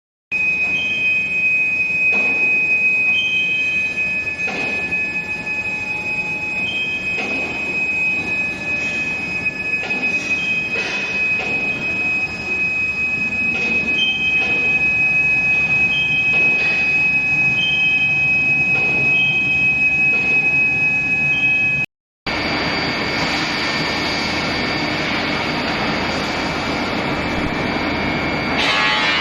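Steel bar induction hardening and tempering line running: a steady high-pitched whine with scattered knocks and short, higher tones that recur every second or two. About 22 seconds in it cuts to a louder, hissing stretch of the same whine.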